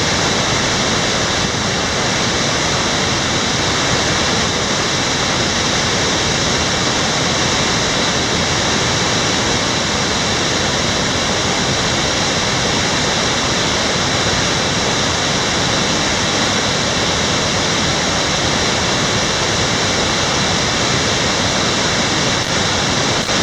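Heavy rain pouring down, a loud, steady rush of water with no breaks.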